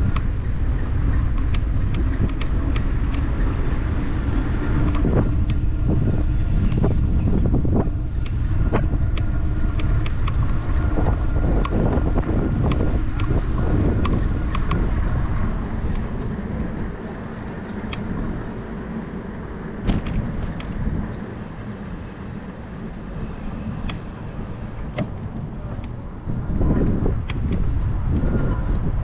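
Wind buffeting a GoPro action camera's microphone on a moving bicycle, with road rumble and scattered sharp clicks and rattles. The rush eases for about ten seconds past the middle, then picks up again near the end.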